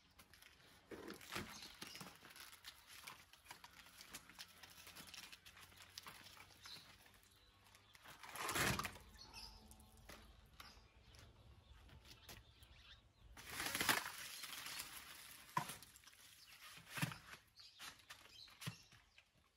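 Mostly quiet, with a few short rattling scrapes as a roller-shutter slat panel is picked up and moved. The loudest come about halfway through and again a few seconds later.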